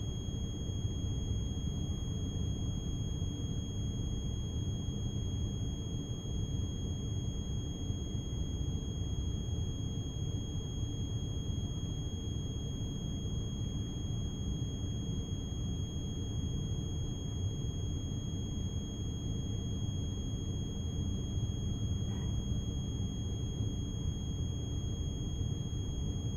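Steady low rumble of a container ship under way at sea, with a thin, constant high-pitched whine over it.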